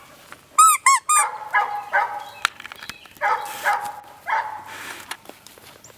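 Dog vocalizing: three quick high squeals about a second in, then a series of short, pitched yips and barks spaced over the next few seconds.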